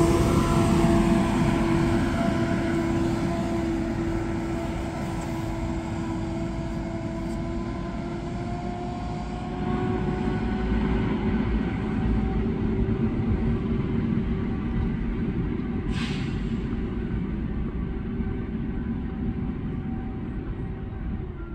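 Engine cooling fan of an articulated Mercedes-Benz Conecto bus howling with a steady multi-tone whine over the engine's rumble, fading as the bus drives away. The fan is running hard all the time, which the owner puts down to a cooling-system problem.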